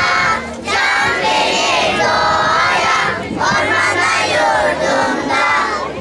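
A group of young children singing loudly together in unison, with brief pauses for breath about half a second in and a little after three seconds in.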